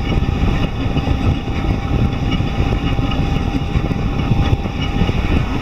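Delta 3D printer running: steady motor and fan noise with a rough, heavy low rumble and a faint steady whine.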